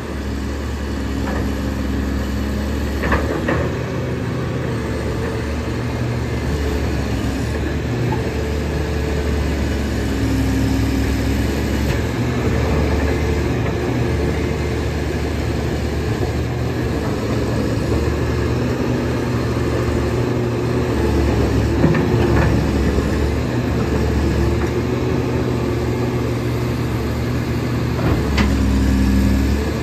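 Komatsu PC350 excavator's six-cylinder diesel engine running under working load, its note shifting as the boom, arm and bucket are moved hydraulically. A few short metallic knocks come from the working machine.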